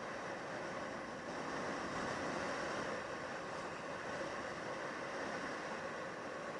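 Steady rushing noise of a vehicle on the move, running without a break and swelling slightly about a second in.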